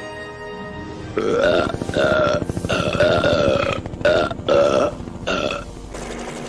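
A run of about six long, loud cartoon burps, one after another, starting a second in, over background music. These are the belches of the Homer-like characters, the burping that spreads the 'Dad virus'.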